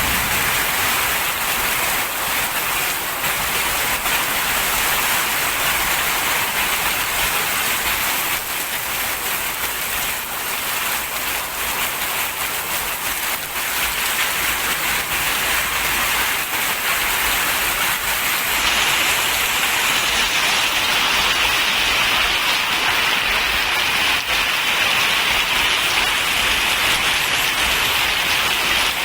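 Heavy tropical downpour: a steady, loud hiss of hard rain falling. About eighteen seconds in, the rain's hiss turns brighter and sharper.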